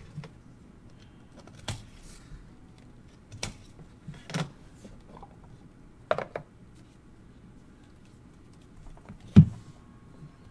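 Card boxes and packaging handled and set down on a wooden tabletop: about five scattered light taps and clacks, the loudest a knock near the end.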